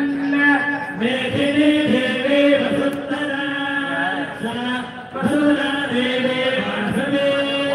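Voices chanting devotional mantras in a steady recitation, each phrase held on a near-level pitch and breaking off about every two seconds.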